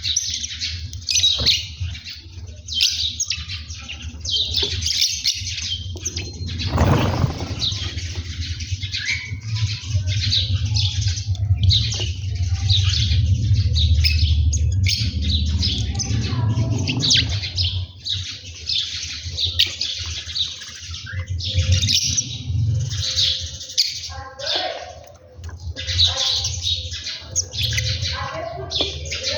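A flock of small birds chirping continuously in a dense, overlapping twitter. A low rumble runs under it from about 7 to 18 seconds in.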